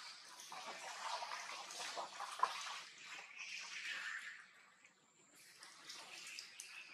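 Young macaques splashing and scrambling through shallow water, in uneven bursts with one sharp slap on the water about two and a half seconds in. The splashing dies down briefly near five seconds in, then picks up again.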